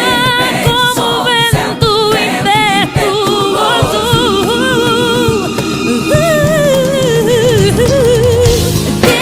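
Gospel song: a female lead voice sings drawn-out, ornamented runs with wide vibrato over the band's accompaniment and drums, with no clear words.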